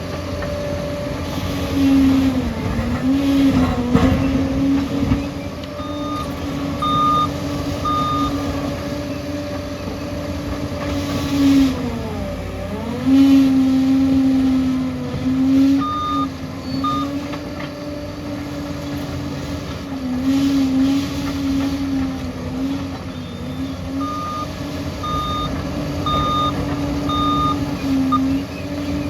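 Liebherr crawler bulldozer's diesel engine running steadily, its note dipping several times as it takes load, most deeply about twelve seconds in. Its reversing alarm beeps about once a second in three spells while it backs up, with some knocking a few seconds in.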